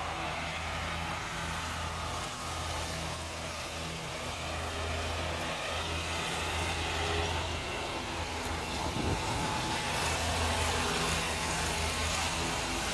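Steady outdoor noise of road traffic.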